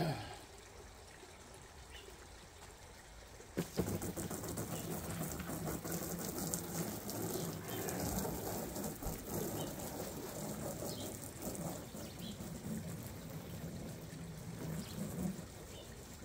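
Garden hose spray nozzle spraying water against the side of an inflatable hot tub, a steady hissing spray. It starts suddenly with a click about three and a half seconds in.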